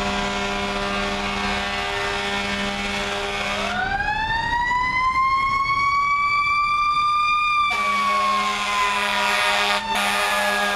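Fire engine air horns blowing a steady chord; about three and a half seconds in they stop and a Federal Q mechanical siren winds up in a long rising wail. Near eight seconds in the air horns sound again while the Q siren slowly winds down, falling in pitch.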